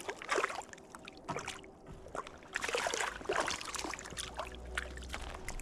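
Shallow river water splashing and sloshing in irregular bursts, with a low steady rumble toward the end.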